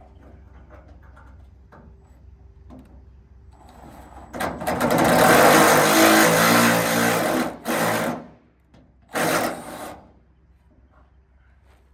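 Small handheld power tool running a tap or thread chaser to clean up threads: light clicks of handling, then the motor runs loudly for about four seconds, stops, and gives one more short burst.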